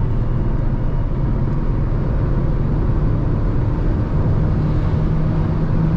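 Cabin noise inside a Jeep Renegade T270 at high highway speed: a loud steady rush of wind noise over the engine and tyre drone, with a low hum that fades and comes back about four seconds in. The wind noise is unusually loud for the car, and the owner does not know its cause.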